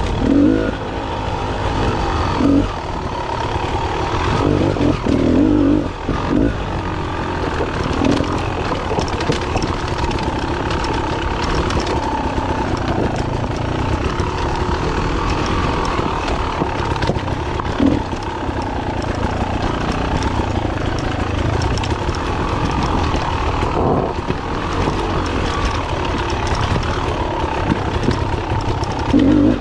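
Dirt bike engine running continuously while riding a rough single track, the throttle rising and falling, with a few brief louder bursts.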